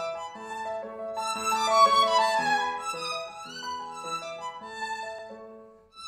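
Calm instrumental background music, a melody with several notes sounding together, fading out just before the end.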